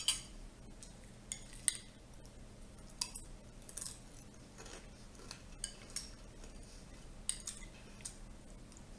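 Metal spoon clinking against a ceramic cereal bowl while eating, a scatter of light, irregular clinks.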